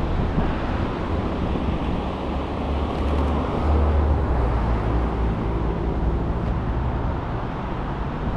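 City street ambience: a steady rumble of passing traffic, with wind buffeting the microphone. A faint engine hum rises out of it in the middle.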